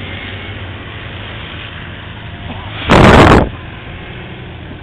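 Off-road SUV engine running low and steady as it crawls through mud. About three seconds in there is one loud rush of noise lasting about half a second.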